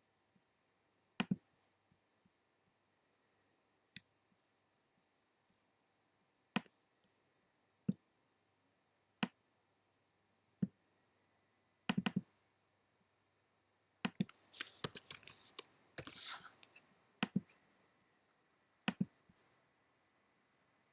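Short, sharp computer-generated clicks at irregular intervals, each one marking a tweet about Apple as it arrives in a Node-RED sonification of the Twitter stream. About two-thirds of the way through comes a dense flurry of clicks, a burst of tweets, then single clicks again.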